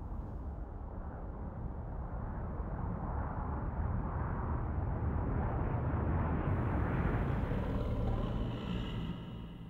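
A low rumbling noise that swells slowly and fades out near the end, with a few faint high tones over it in the last seconds.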